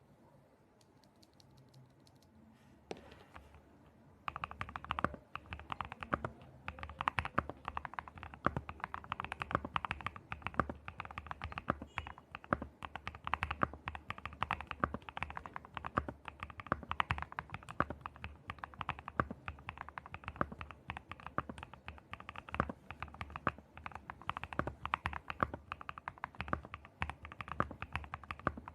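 Typing on a mechanical keyboard fitted with Gateron 5-pin linear switches: after a quiet start and a single click about three seconds in, rapid, irregular keystroke clacks begin about four seconds in and continue.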